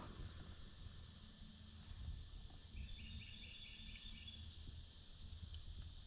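Faint outdoor ambience of insects, a steady high buzz, with a quick run of evenly spaced chirps near the middle over a low rumble.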